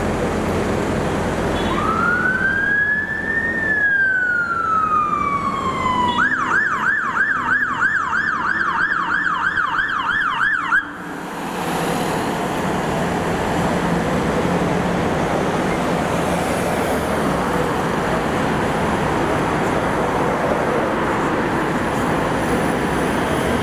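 Fire engine siren: one slow wail rising and falling, switching about six seconds in to a fast yelp of about four cycles a second, which cuts off abruptly. Then steady engine and road noise as the fire engine passes close.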